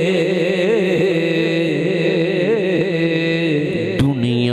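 A male singer holding a long wavering melismatic note of a devotional Punjabi kalam over a steady accompanying drone, with one sharp click about four seconds in.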